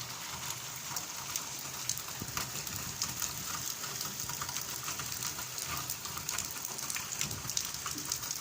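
Rain falling steadily: a constant hiss dotted with many small, sharp drop impacts.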